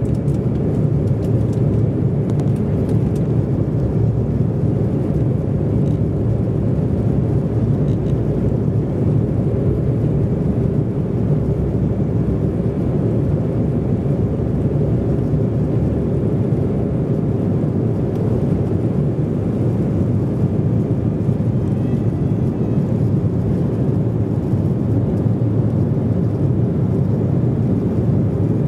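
Embraer E190's GE CF34-10E turbofans at takeoff thrust, heard inside the passenger cabin as a steady, loud low rumble through the takeoff roll and lift-off.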